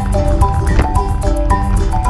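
Background music: a quick melody of short struck notes over a dense low layer.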